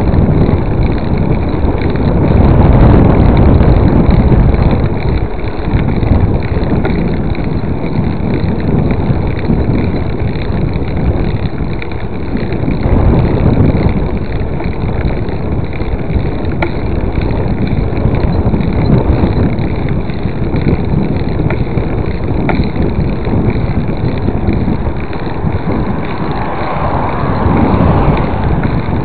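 Wind buffeting the microphone of a camera carried on a mountain-bike ride: a loud, uneven low rumble with a few faint clicks.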